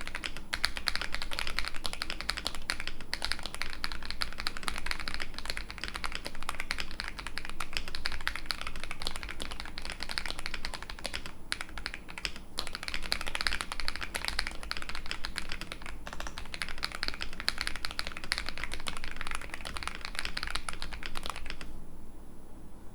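Fast, continuous typing on a mechanical keyboard fitted with Akko V3 Cream Yellow linear switches, which have polycarbonate housings and POM stems. The typing stops abruptly near the end.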